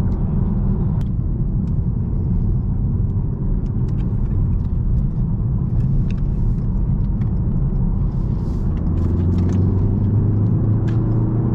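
Steady road and engine rumble inside a moving car, from the Ford's 2.3 turbo engine and tyres. Near the end the engine note firms into a steadier hum that climbs slightly in pitch.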